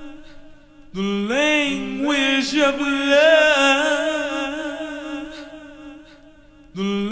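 Music with no beat: a drawn-out chanted vocal line that slides up in pitch about a second in, holds with a slight waver and slowly fades, then starts again near the end.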